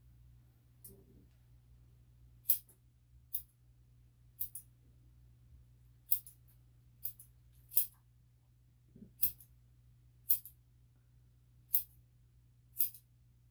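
Grooming scissors snipping a dog's hair, about a dozen sharp single snips spaced roughly a second apart, over a faint steady low hum.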